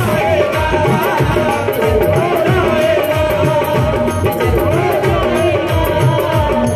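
A woman singing a Hindu devotional mata bhajan into a microphone through a PA system, backed by electronic keyboard and a steady drum beat.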